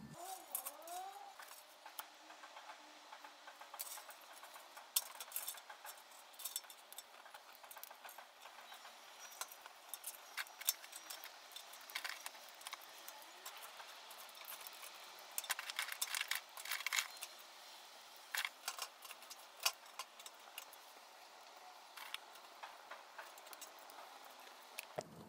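Small twig-and-shaving fire crackling in a homemade tin-can woodgas stove: faint, irregular sharp snaps and pops, some in quick clusters, over a soft hiss.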